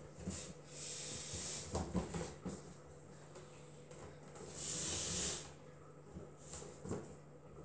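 Cord being pulled through the weave of a woven water-hyacinth basket: two long scraping hisses, about a second in and again around five seconds in, with light knocks and rustles of the basket between.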